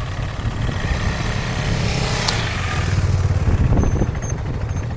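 Motorcycle engine running as the bike rides slowly up and pulls in beside another motorcycle; the low engine sound swells slightly past the middle.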